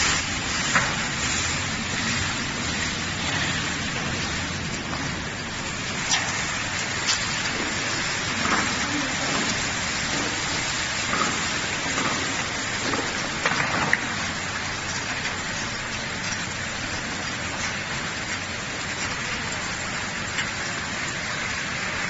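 Tunnel automatic car wash running: a steady hiss of water spraying, broken by a few short knocks.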